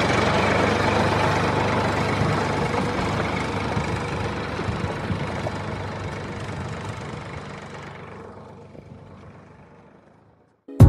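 Plastic toy tractor with a loaded trailer running along concrete, a steady mechanical rumble that fades away over several seconds as it moves off and is gone about a second before the end.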